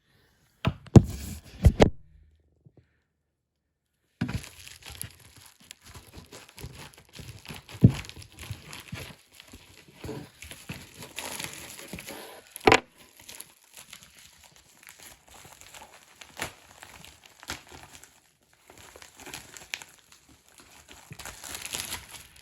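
A mail package being torn open and handled: crinkling and tearing of the packaging, with a few sharp knocks and clicks. About two seconds in it drops to dead silence for a couple of seconds before the crinkling resumes.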